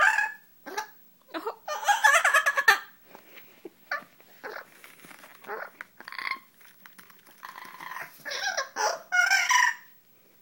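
Double yellow-headed Amazon parrot calling in a string of squawks and chattering calls, the loudest a long burst about two seconds in and another run near the end.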